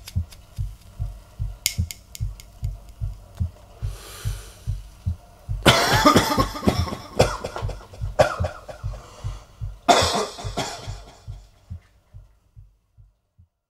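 Instrumental passage at the end of a song: a steady low drum beat, about two and a half thuds a second, with loud harsh bursts over it twice in the middle, dying away to nothing near the end.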